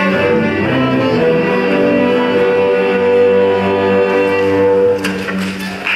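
Student string orchestra of violins, cellos and double basses playing the final bars of a piece, ending on a long held chord that stops about five seconds in.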